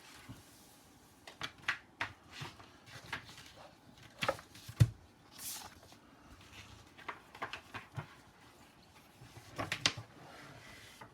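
Handling of packaging and a large hardcover book: scattered knocks, taps and rustles, with a heavier thump about five seconds in and a brief sliding swish just after it.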